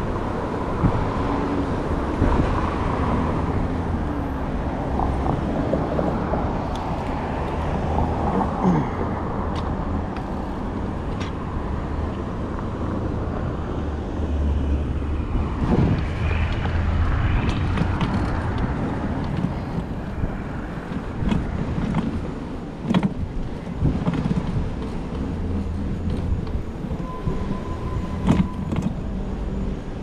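Street traffic noise heard from a moving bicycle: passing cars and a low, fluctuating rumble of wind buffeting the chest-mounted GoPro microphone, with occasional sharp clicks and knocks.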